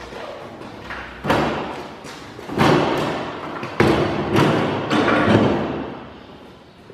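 Old truck's steel cab door being set down and handled on a concrete floor: a series of about five heavy thumps and knocks, each ringing briefly as it dies away.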